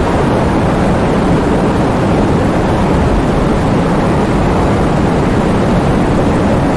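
Heavy thunderstorm: a steady, loud rush of heavy rain with a deep low rumble underneath, and no sharp thunderclap.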